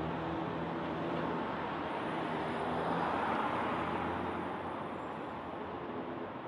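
Road traffic with a motor vehicle's engine running close by as a steady low hum. It swells about three seconds in and eases off toward the end.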